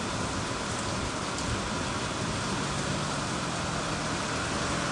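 Heavy thunderstorm rain falling with great force, a steady even hiss of downpour.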